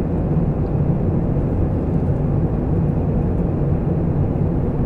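Steady low rumble of a jet airliner passing overhead.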